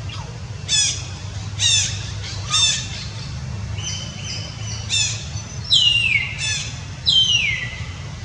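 A series of harsh, high-pitched animal calls, about seven in all. Several slide down in pitch, and the last two are the longest. A steady low rumble runs underneath.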